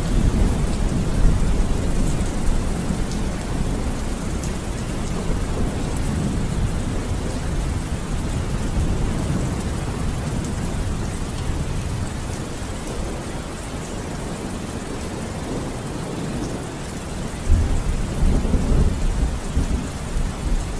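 Rainstorm ambience: steady rain with low rolling thunder, rumbling strongest near the start and building again suddenly toward the end.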